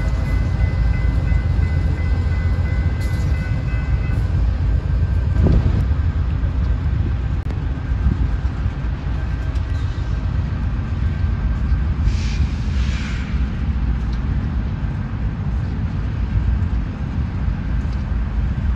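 Union Pacific diesel locomotives moving through a rail yard: a steady low engine rumble, with a faint thin high whine over it for the first few seconds.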